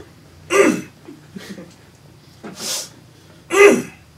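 A man clearing his sinuses: two loud nasal snorts, each falling in pitch, with a harsh sniff between them.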